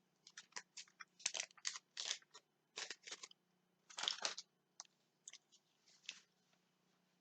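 Crinkling and tearing of a chocolate bar's wrapper as it is opened by hand: a run of short, irregular crackles, busiest in the first four and a half seconds and thinning out after.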